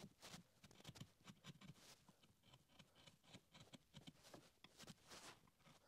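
Faint, quick scraping strokes of a sharp chisel paring a chamfer around the end of a wooden stool leg: many short scrapes in a row.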